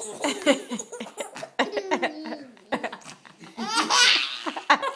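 Baby laughing at a sneeze: repeated short bursts of belly laughter, with a louder, higher burst about four seconds in.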